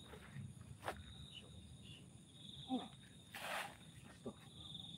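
Crickets trilling in a steady, high, pulsing chirr, faint overall. A sharp click comes about a second in, and a brief rustle a little past the middle.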